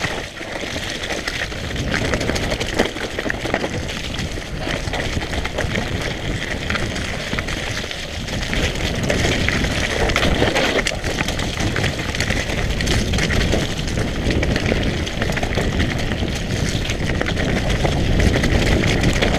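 Mountain bike ridden down a rough trail, heard from a camera on the rider: a steady rush of wind and tyre noise with frequent small knocks and rattles from the bike.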